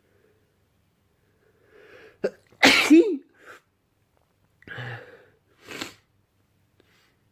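A man sneezing: a breathy in-breath, then one loud sneeze about two and a half seconds in that ends on a short voiced sound, followed by two shorter, softer bursts.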